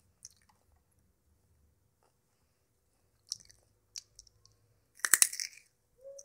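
A person chewing and biting crunchy food: scattered crunches and mouth clicks, with the loudest crunching about five seconds in.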